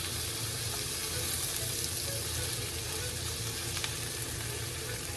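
Food frying in oil in a pan: a steady sizzle with a few small pops.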